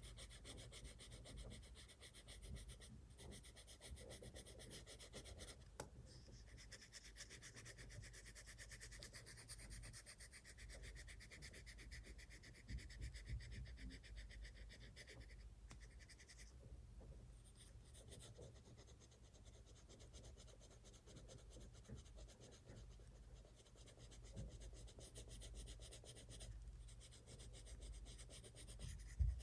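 Faint, continuous scratching of a colored pencil shading on sketchbook paper, with a sharp click just before the end.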